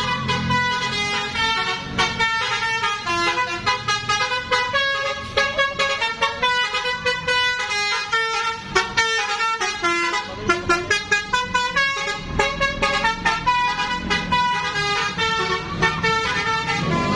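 Basuri multi-tone 'telolet' horn playing a tune, a quick run of short notes that change pitch several times a second without a break.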